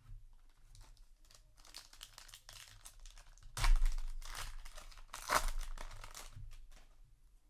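Plastic-foil booster pack wrapper crinkling and rustling as it is handled, with two louder bursts of crackling about three and a half and five and a half seconds in.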